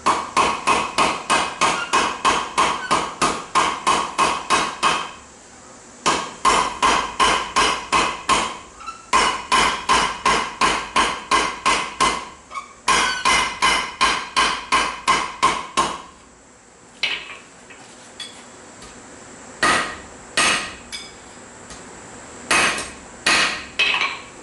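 Hand hammer striking steel on an anvil in forging: four quick runs of blows, about three a second, each blow with a ringing tone, separated by short pauses. In the last several seconds only a few single strikes.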